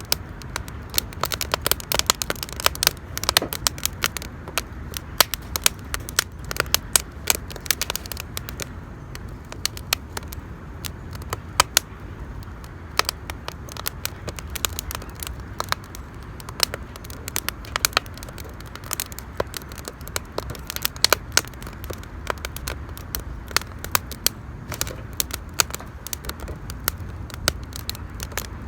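Wood campfire crackling, with irregular sharp pops and snaps, several a second, over a steady low background noise.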